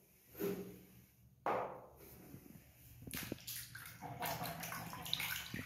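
Soapy water in a plastic basin sloshing and splashing as a hand swishes toy vehicles through it, with a splash about a second and a half in and continuous swishing and dripping from about three seconds on. A short burst of sound about half a second in.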